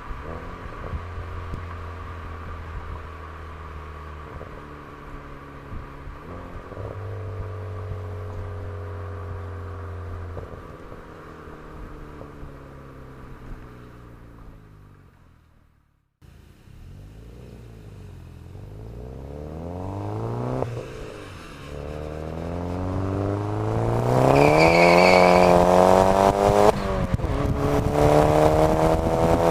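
Turbocharged 2008 Chevrolet Cobalt SS four-cylinder running through a Hahn turbo-back exhaust. Its note rises and falls with throttle and gear changes. After a brief cut about halfway, it accelerates hard several times, pitch climbing with each pull and growing louder, with a high whistle over the loudest pull.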